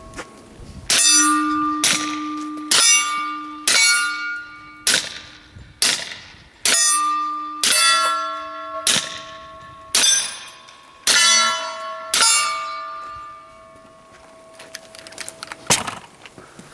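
About a dozen suppressed shots from an FN FNP-45 .45 ACP pistol with a Banish 45 suppressor, roughly one a second. Each shot is followed by the clang and fading ring of a steel target being hit.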